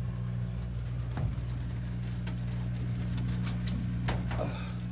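Washing machine in its drain and spin cycle, the drum spinning with a steady motor hum, with a few short clicks and knocks over it.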